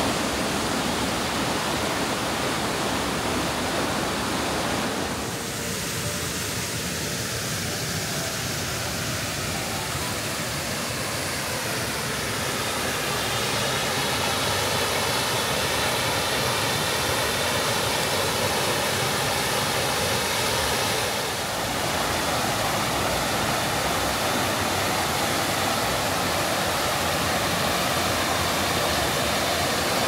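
Giessbach waterfall rushing: a steady roar of falling water that dips briefly twice, about five seconds in and again about twenty seconds in.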